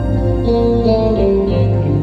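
Live instrumental music: an electric guitar plays sustained melody notes over keyboard accompaniment with a steady low bass.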